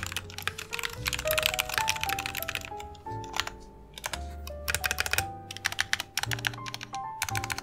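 Typing test on a Royal Kludge RK-68 60% mechanical keyboard with lubed linear red switches and clipped, lubed clip-in stabilizers: quick runs of keystrokes with short pauses, over background music.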